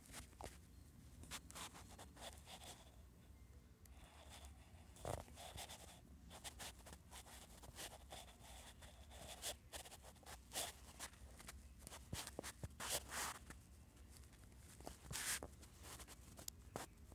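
Faint, irregular scratching and tapping of a finger working a phone's touchscreen while drawing, with no regular rhythm.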